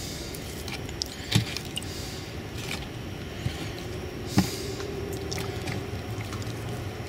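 Hands rustling through grass bedding and soil in a plastic tub while picking out nightcrawlers, with a sharp knock about a second and a half in and another just past four seconds. A steady low rumble runs underneath.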